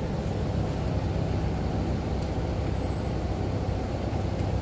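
Steady low drone of a vehicle engine idling amid street traffic, even and unbroken.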